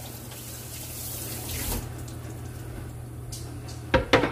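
Tap water running into a stainless-steel kitchen sink, shutting off a little before halfway through. Near the end come two sharp clacks.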